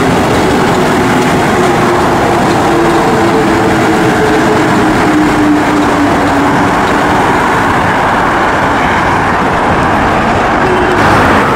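Rubber-tyred metro train passing on its running track, with a steady rush of running noise. A few motor tones whine and slowly fall in pitch over the first several seconds as it goes by.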